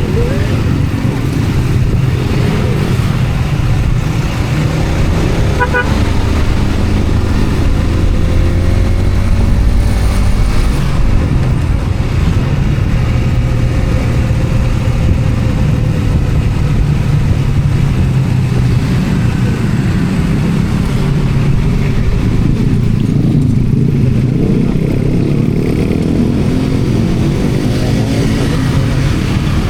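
Motor vehicle engine and road noise, running steadily throughout, as if riding along a road.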